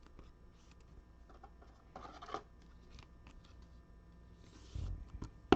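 Trading cards being handled: soft rustling and light clicks, with a brief louder scrape about two seconds in and a sharp click at the end.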